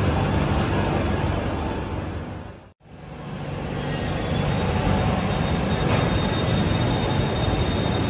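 Bangkok BTS Skytrain at an elevated station: the steady running and rumbling noise of the train. It fades out just before the middle and back in, with a thin high whine in the second half.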